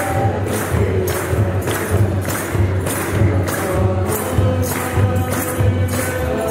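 Eritrean Orthodox church chant: large kebero drums beaten in a steady rhythm, with a jingling about twice a second and voices singing.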